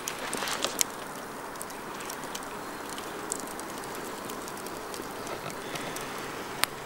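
Wood campfire burning: a steady hiss with scattered sharp crackles and pops, several in the first second and one loud pop near the end.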